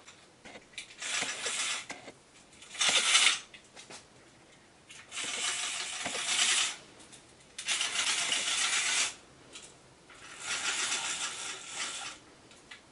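Roman blind being handled at its top rail: five bursts of scratchy noise, each a second or so long, with short pauses between.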